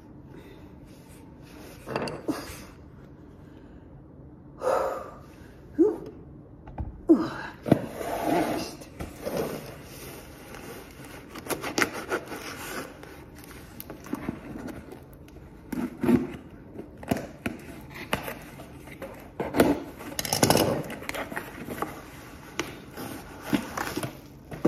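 Scattered unpacking noises: scissors cutting into a small cardboard box, with scrapes, taps and rustling as the box and packaging are handled, and some breathing from the person doing it.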